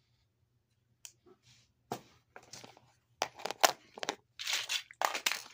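Rustling and crinkling of fidget toys and plastic being handled and sorted: a run of short scratchy noises, sparse at first and busier from about three seconds in.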